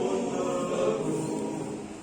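Mixed choir singing a cappella in sustained chords, softly, the phrase tapering off near the end.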